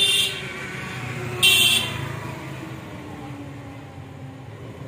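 Street traffic: a vehicle runs past while a horn gives two short toots about a second and a half apart, over a steady low traffic rumble.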